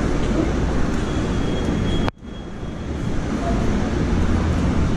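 Steady city street traffic noise with a low rumble, cutting out abruptly about two seconds in and slowly building back up.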